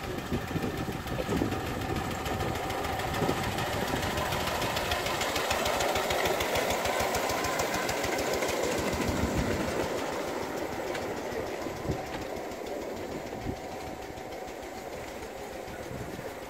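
Small engine of a miniature railway locomotive running with a rapid steady beat as it hauls a coach along the track, growing louder as it passes close by about halfway through, then fading as it pulls away.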